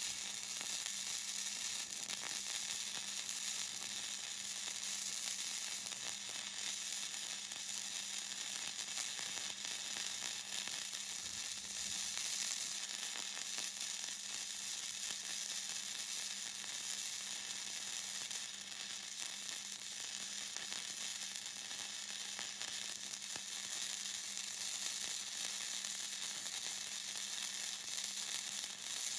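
Hobart Handler 140 wire welder running gasless flux-core wire in one unbroken arc: a steady crackling sizzle with spatter, the weld bead being laid without a stop. A faint steady hum sits underneath.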